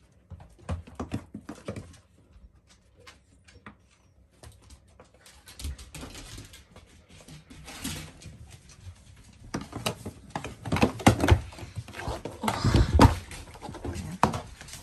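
The small hooves of a lamb and a goat kid tapping and scuffling on a wooden floor as the animals jostle, with dogs pushing in close. The loudest rustling comes a few seconds before the end, as fur brushes right against the phone.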